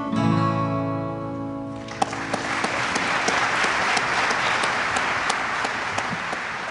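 The last chord of an acoustic guitar song rings out, then about two seconds in an audience breaks into applause, which fades away near the end.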